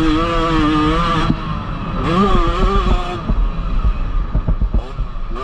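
1996 Honda 125 two-stroke single-cylinder motocross engine revving high, then shut off about a second in. It gives one short throttle blip, then runs low off the throttle with a string of knocks and rattles.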